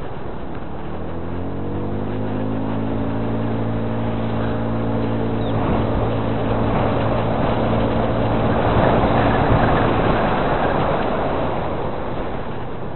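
A motor engine running, rising in pitch briefly about a second in and then holding steady, under a rushing noise that swells near the end and then eases as the engine tone fades.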